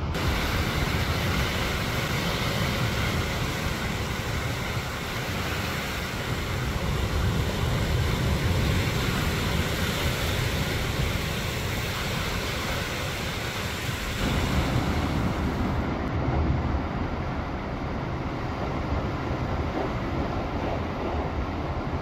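Sea waves surging against and washing over shoreline rocks: a continuous rushing surf with swells rising and falling, heavy in the low rumble, the high hiss easing off about sixteen seconds in.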